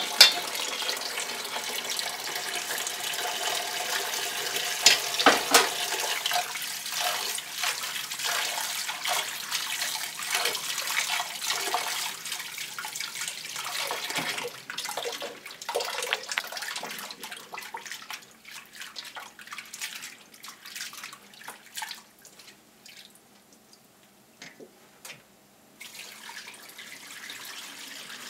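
Tap water running into a steel bowl of soaked split soybeans while hands swish and rub the beans to loosen their hulls. The running water and splashing thin out after the halfway point and nearly stop for a few seconds, then water pours again near the end as the rinse water is tipped off into the sink.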